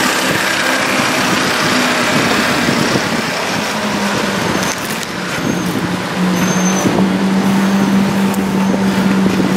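Vehicle engine running at a steady low speed over road and wind noise in town traffic; its hum grows a little louder and steadier about six seconds in.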